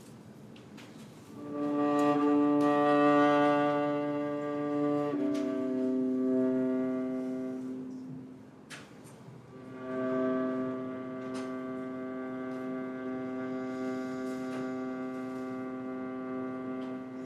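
Violin playing slow, long bowed notes: a held note begins about a second in and steps down to a lower note at about five seconds, which fades out; after a short pause another long note is held from about ten seconds to the end.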